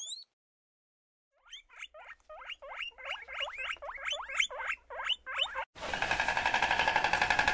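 Guinea pigs squeaking: a quick run of short rising squeaks, about four a second, starting about a second and a half in. Near the end it is cut off by a louder, steady pulsing drone.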